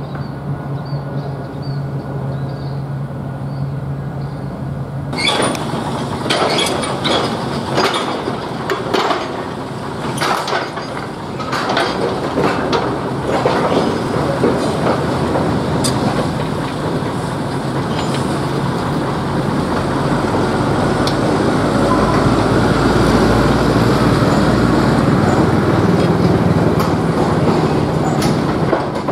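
Narrow-gauge diesel locomotive with a string of empty sugar-cane wagons. A steady engine hum comes first; from about five seconds in there are repeated metallic clanks and rattles of the wagons on the track, and the engine runs louder and deeper in the last third.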